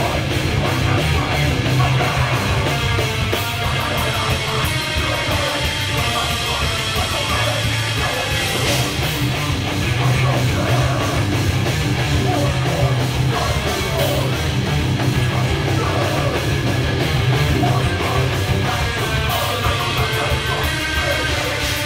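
A live heavy metal band playing full-on: distorted electric guitars, bass and fast drums with crashing cymbals, with a vocalist yelling into a microphone over them.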